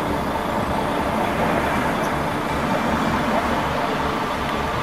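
Tour coach driving: steady engine drone and road noise with a low rumble.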